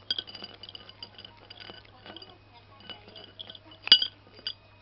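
A cat crunching rice crackers from a ceramic bowl: a run of short, crisp cracks and clicks, with hard crackers clinking against the bowl. The loudest crack comes about four seconds in.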